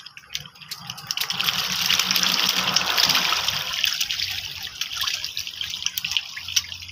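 A mass of fish splashing and churning at the water's surface in a feeding frenzy as feed is thrown to them. The splashing swells about a second in, is loudest around two to three seconds in, then eases to a steady churning.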